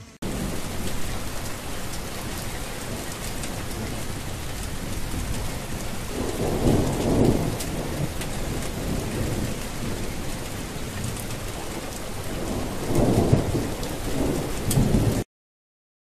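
Steady heavy rain with two low rolls of thunder, about six seconds in and again near the end. The rain starts abruptly and cuts off suddenly.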